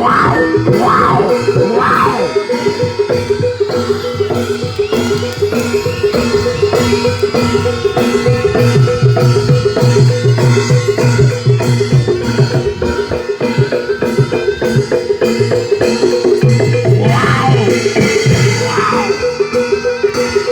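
Live Javanese gamelan-style barongan accompaniment: hand drums and gong-chime metallophones playing a fast, steady repeating pattern, with sweeping rising-and-falling pitch glides near the start and again near the end.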